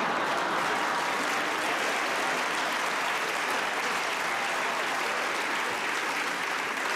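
Theatre audience applauding in a steady, dense round of clapping.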